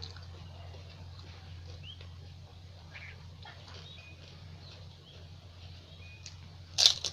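Close-miked eating of pani puri: faint wet mouth clicks and chewing sounds, then near the end one loud, sharp crunch as a crisp puri shell is bitten.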